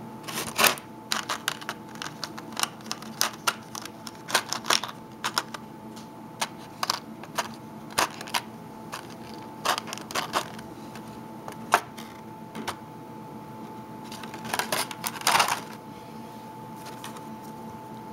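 Clear plastic blister tray crackling and clicking in irregular bursts as it is handled and flexed, with a dense run of crackles near the end.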